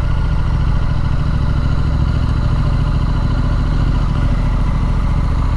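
Triumph Street Scrambler's 900 cc parallel-twin engine running steadily at low revs while the motorcycle is ridden slowly.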